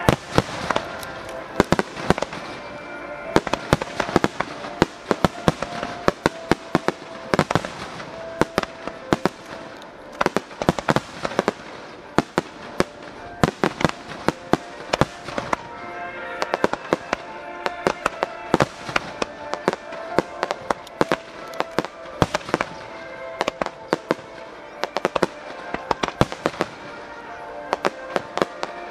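Aerial firework shells from Saiki Enka Honten bursting in rapid, irregular succession, many sharp bangs over the whole stretch and thickest toward the end, with music playing underneath.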